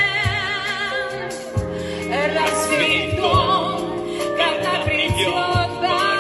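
A vocal-instrumental ensemble performing a song live: singing with a wavering vibrato over a steady band accompaniment with regular drum strikes.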